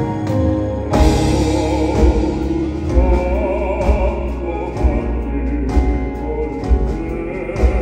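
Live pop-band accompaniment of drums and keyboards under a solo male voice singing in a classical crossover style with wide vibrato. The voice comes in about a second in.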